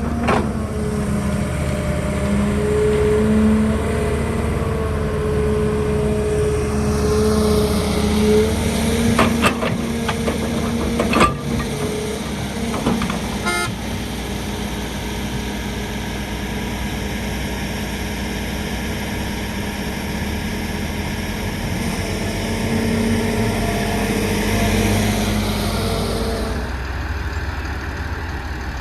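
Heavy diesel construction machinery, an excavator loading a dump truck, running steadily with a humming engine tone, with a few sharp clanks about ten seconds in.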